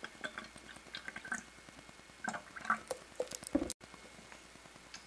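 Water poured from a plastic bottle into a clear plastic cup, trickling and splashing in small uneven spurts with light plastic clicks. A louder thud comes about three and a half seconds in, and the sound cuts off suddenly right after.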